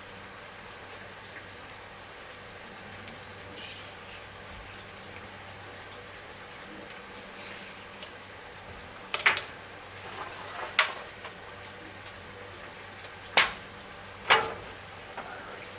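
Steady, high-pitched drone of insects, broken in the second half by about four sharp knocks.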